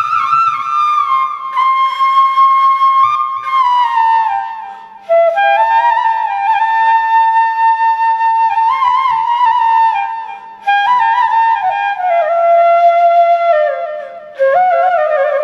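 Background music: a solo flute playing a slow melody with sliding ornaments, in phrases broken by short breath pauses about 5, 10 and 14 seconds in.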